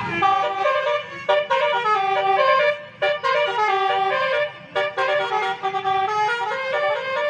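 Basuri multi-tone 'telolet' horn playing a melody: a run of loud horn notes stepping between pitches, broken by short pauses about three seconds in and again about four and a half seconds in.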